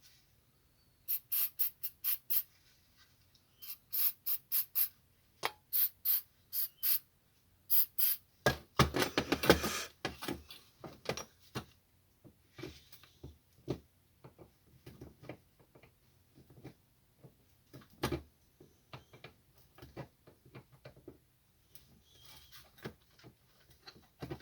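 Hand tools working on a brass oxy-acetylene cutting torch. Runs of four to six sharp metallic clicks come at about four a second, a denser metal clatter follows about nine seconds in, then scattered small clicks and taps as the parts are handled.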